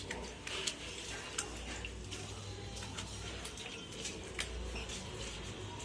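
Air compressor parts being washed by hand in diesel: liquid sloshing with scattered light clinks of metal parts.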